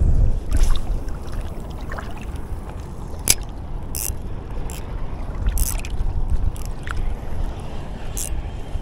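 Steady low rumble of water and wind around an action-camera microphone at the water's edge, with a few short, sharp hissing ticks.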